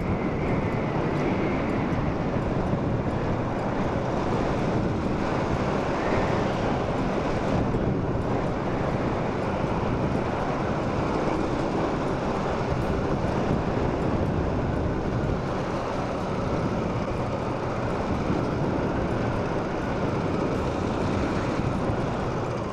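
Motorcycle under way: the engine's steady drone mixed with a continuous rush of wind noise, with no sharp events.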